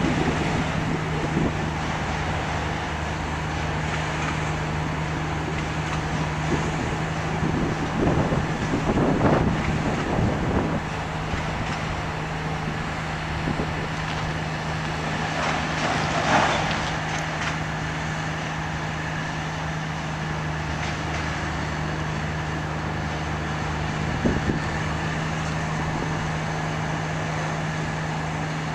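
Freight train of autorack cars rolling past, a continuous rumble of wheels on rail with a steady low hum. There are a few louder bumps and surges about eight to ten seconds in, around sixteen seconds and near twenty-four seconds.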